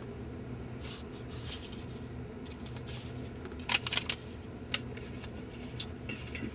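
Small rustles and clicks of a mobile phone being handled against the ear, over a steady low hum in a small room. The biggest cluster of clicks comes about four seconds in.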